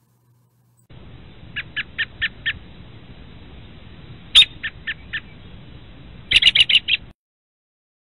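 American robin calls: a run of about five short, sharp notes about a second in, then one loud sharp call a little after the middle followed by three softer ones, and a quick run of louder notes near the end, over faint recording hiss.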